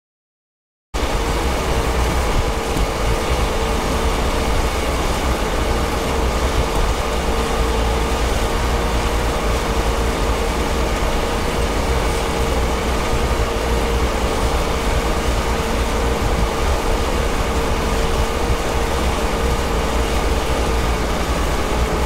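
John Deere combine running steadily, a heavy low rumble with a constant whine. It starts abruptly about a second in.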